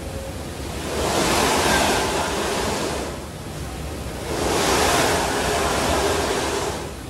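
Snowboard sliding and scraping on the moving carpet of an indoor revolving-slope simulator: a hiss that swells with each turn, twice, over a steady low hum.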